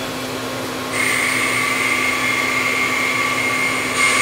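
A steady high-pitched motor whine, silent at first, starting about a second in and cutting off near the end, over a constant low hum.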